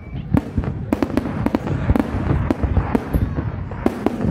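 Fireworks display: many sharp bangs and crackles in quick, irregular succession over a steady low rumble.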